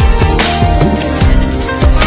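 Instrumental passage of a Tamil film song: drum and bass beats under sustained melodic tones.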